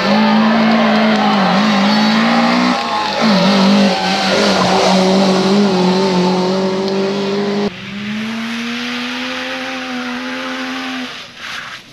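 Competition car engine at high revs, its note dipping briefly a couple of times as the throttle is lifted or the gear changes. About eight seconds in, it cuts abruptly to another steady, quieter engine note that fades away near the end.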